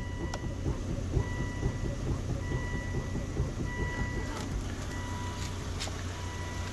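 2004 Volvo V70's engine idling, with a steady low hum and rumble, while the steering is turned at a standstill. A faint tone comes and goes about once a second, and a few sharp clicks stand out; these are the front-end clunks the owner is trying to diagnose as steering or suspension.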